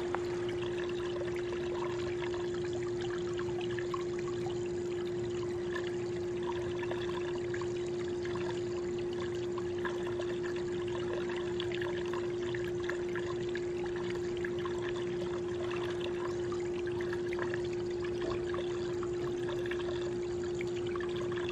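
Water trickling and lapping, under a steady unchanging hum.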